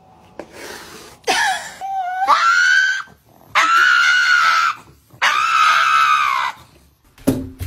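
Pug dog screaming: three long, high-pitched screams, each a second or more, after a shorter rising cry.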